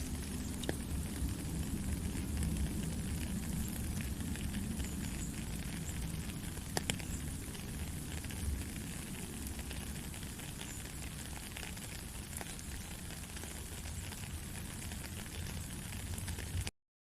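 Steady rain, a dense hiss over a low rumble, with scattered individual drop ticks. The sound cuts out completely for a moment near the end.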